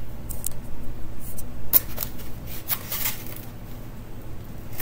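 Foam takeout clamshell container being handled, with a scattering of short creaks, squeaks and rubbing crackles.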